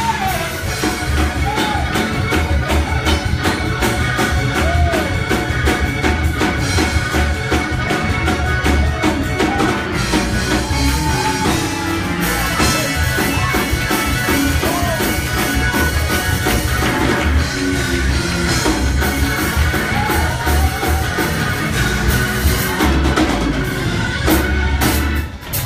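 Live church praise music: a drum kit playing a fast, steady beat under other instruments, with voices singing and calling out over it.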